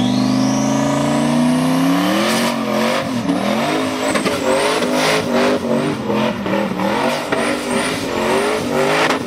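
A G-body car's engine revving up steadily, then its revs rising and falling over and over as it spins donuts, with tyres squealing on the pavement.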